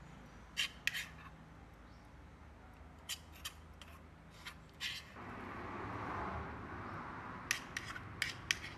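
Sharp clicks and snips of small cooking tools being handled, some in quick pairs and a cluster of them near the end, with a soft hiss coming in about five seconds in.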